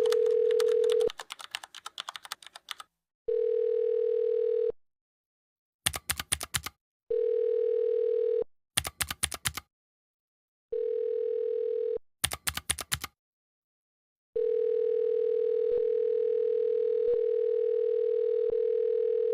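Telephone dial tone: one steady mid-pitched tone heard in short stretches of about a second and a half, with quick runs of sharp keypad button clicks in the gaps between them. From about two thirds of the way in, the tone holds unbroken.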